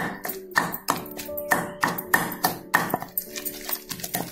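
Long wooden pestle pounding wet tomato chutney and coriander leaves in a stone mortar, a steady run of about three thuds a second, grinding it to a fine paste. Background music with steady held tones plays underneath.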